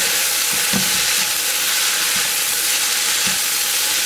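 Rice vermicelli with chives and carrot stir-frying in a hot nonstick pan: a steady sizzle, with a few soft knocks as a wooden spatula turns the noodles.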